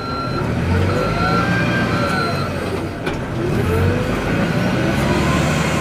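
XCMG backhoe loader's diesel engine running and revving while working, its pitch rising and falling.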